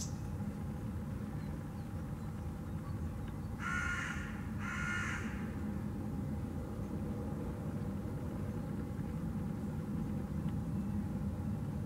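A crow caws twice in quick succession about four seconds in, each call about half a second long. Underneath is a steady low rumble of city traffic.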